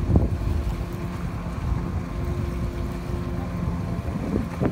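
Speedboat engine running steadily at speed, a low drone with a faint steady hum, over heavy wind buffeting the microphone and the rush of water.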